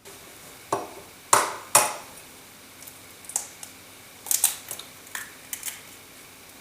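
Raw eggs cracked against the edge of a glass or bowl: a series of sharp taps and clicks, three loud ones in the first two seconds, then lighter ones.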